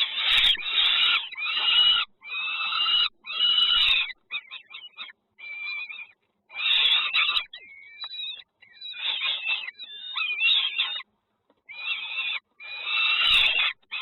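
Nestling birds begging in the nest: harsh, raspy calls in repeated bursts about a second long, with a few thin sliding notes among them.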